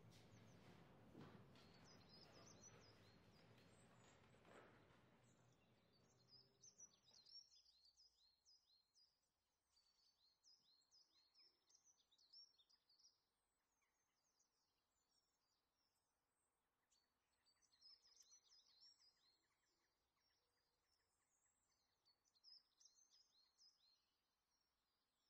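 Near silence with small birds chirping faintly in quick, high clusters that come and go. In the first seven seconds or so there is a soft scratchy noise underneath, which cuts off abruptly.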